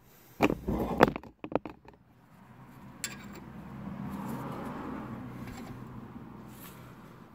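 Sharp metal clinks and knocks of a wrench and tools against a brake caliper, several in quick succession. After that a steady rush of noise slowly rises and fades.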